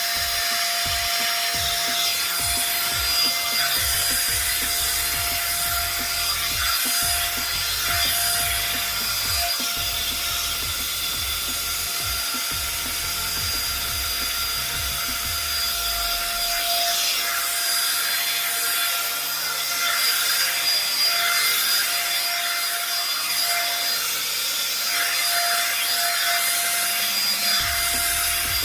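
One-step hot-air hair dryer brush running, with a steady motor whine over a loud rush of air. The brush rubs and drags through hair in uneven strokes.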